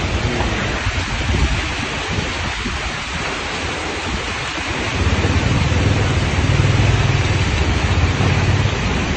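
Severe thunderstorm squall: a dense, steady hiss of wind-driven heavy rain, with gusts buffeting the phone's microphone in a deep rumble that grows stronger about five seconds in.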